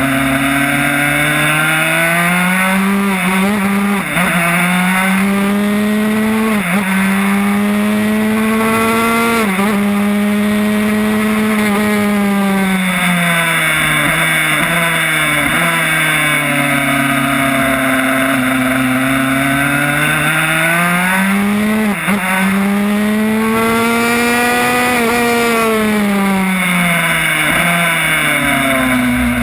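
Yamaha YZ85 two-stroke single-cylinder engine in a Honda RS125 race bike running hard on track. Its note climbs through the gears with a sudden dip at each shift, then falls away in two long glides as it slows between corners.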